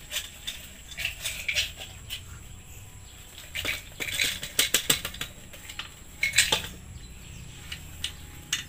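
Short metallic clicks and clinks from handling and loading a homemade PVC toy gun, coming in three clusters.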